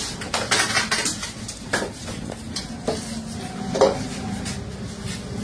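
Iron chains and metal pans of a hanging balance scale clinking and rattling as fish and weights are loaded onto it, with several sharp metallic knocks.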